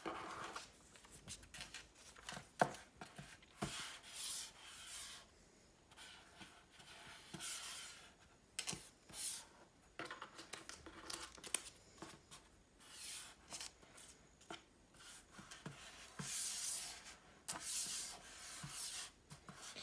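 Small paper cards being slid one by one across a wooden tabletop and set in place: irregular soft swishes of paper rubbing on wood, with an occasional light tap as a card is put down.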